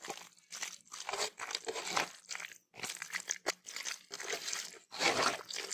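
A hand kneading and squishing raw chicken pieces in a thick yogurt-and-spice marinade in a steel bowl, in repeated short bursts about two or three a second.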